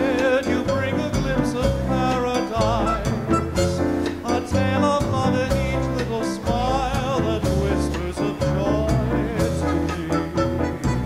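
Live dance orchestra playing a Latin tune in 1930s–40s style, a melody line with wide vibrato carried over a steady bass and rhythm section.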